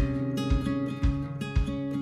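Background music: acoustic guitar over a steady low beat, about two beats a second.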